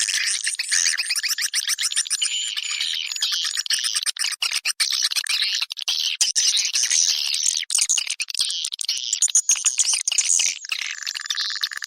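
Swiftlet lure-call recording: a dense chorus of rapid, high chirping and twittering of edible-nest swiftlets, the kind played in swiftlet houses to attract the birds to nest. A steady high buzz joins the chirping near the end.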